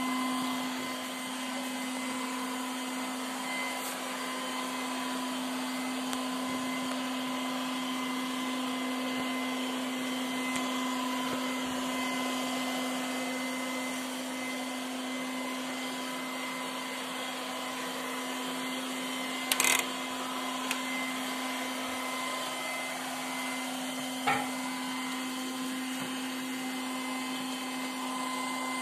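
Milagrow Seagull robot vacuum cleaner running with a steady motor hum and whir, one low tone held under fainter higher whines. Two brief sharp knocks about two thirds of the way through, a few seconds apart.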